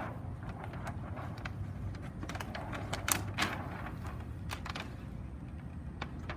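Thin clear Mylar plastic sheet crinkling and crackling as it is unrolled and smoothed over a cooler lid, with the sharpest crackles about two to three seconds in. A steady low rumble runs underneath.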